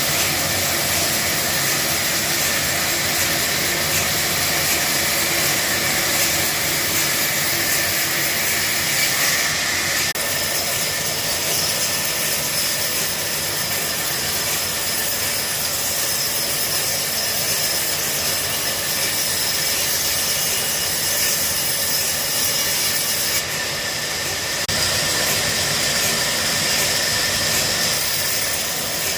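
Woodworking machinery running steadily: a continuous loud hissing whir that shifts slightly in tone about ten seconds in and again near the end.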